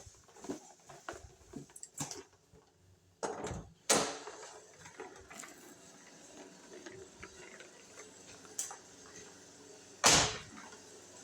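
Footsteps and handling noise indoors, scattered light knocks and clicks, with two loud sharp knocks, one about four seconds in and one near the end.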